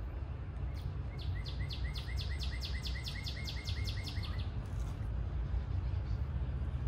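A songbird sings a rapid run of about fifteen repeated short notes, some five a second, starting about a second in and lasting about three seconds. Under it is a steady low outdoor rumble.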